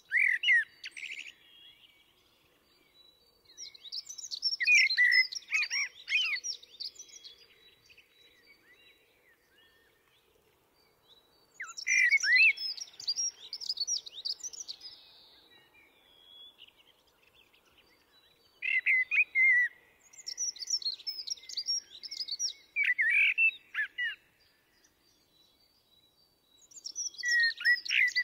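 Common blackbird singing: short warbling phrases of quick whistled notes, repeated with pauses of a few seconds between them.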